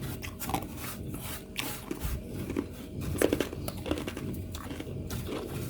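Freezer frost being bitten and chewed: irregular crisp crunches, several a second.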